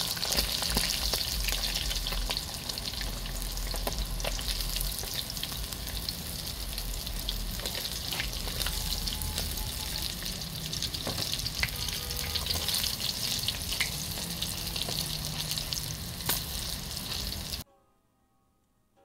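Whole sprat fish sizzling and crackling as they fry in hot oil in a wok, with scattered sharp pops. The frying cuts off abruptly near the end, leaving faint music.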